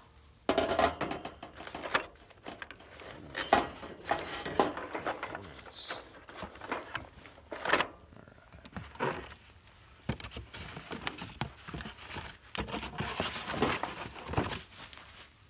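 Unpacking handling noise from a Coleman camp grill/stove: the grill grate is set down into the stove body with a series of irregular clunks and rattles, mixed with cardboard and paper packing rustling.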